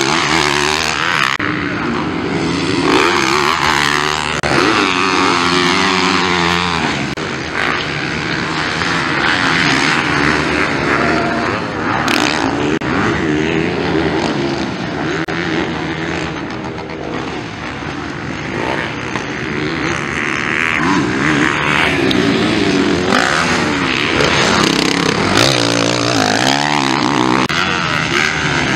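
Several motocross bikes racing on a dirt track, their engines repeatedly revving up and dropping back as they accelerate out of corners and over jumps, overlapping one another.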